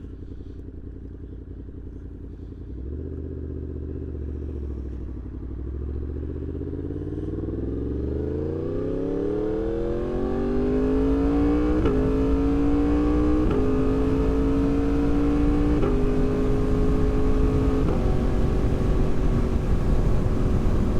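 2024 Yamaha MT-10 motorcycle with a RaceFit Growler X exhaust, its inline-four accelerating hard from low revs with a steeply rising note. It then shifts up through the gears about four times, each shift a sudden drop in pitch followed by a slower climb.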